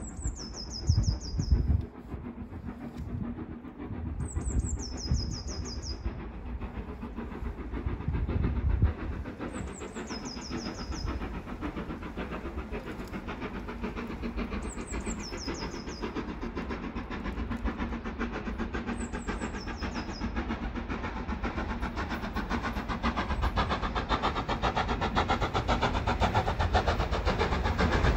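LMS Black 5 steam locomotive No. 44871 approaching under power, its rapid exhaust beats growing steadily louder through the second half until it arrives. Early on, gusts of wind hit the microphone, and a small bird sings a short descending phrase about every five seconds, five times in all.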